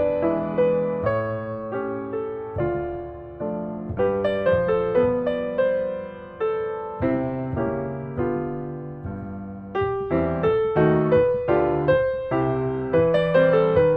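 Background piano music: a slow melody over chords, each note struck and dying away, thinning out for a few seconds in the middle and growing fuller again near the end.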